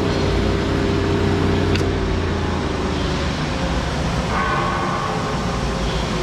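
Steady hum and noise of running machinery, with higher steady tones joining about four seconds in.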